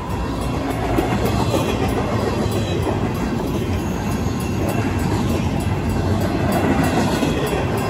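Empty intermodal well cars rolling past at speed: a steady rumble of wheels with clacking over the rail joints. The crossing's mechanical warning bell rings through it.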